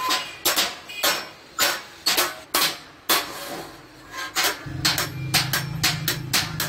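Hand hammer striking a sheet-metal milk can top, working the neck ring into its opening: sharp metallic taps about twice a second, a short pause, then quicker taps. A steady low hum comes in about two-thirds through.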